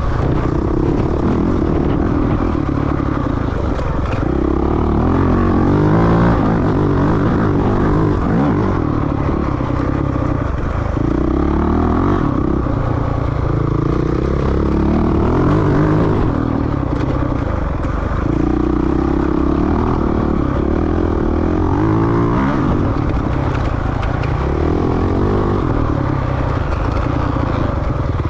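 Dirt bike engine being ridden hard on a trail, revving up and dropping back again and again as the rider works the throttle and gears.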